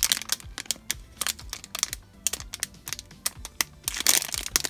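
Clear plastic packaging crinkling in quick, irregular crackles as a bagged squishy toy is handled, over quiet background music.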